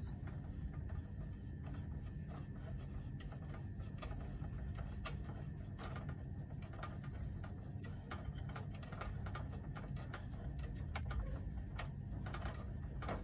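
Screwdriver turning out the small screws that hold a touchscreen in its mounting, with many small irregular clicks and scrapes of metal and plastic over a low steady hum.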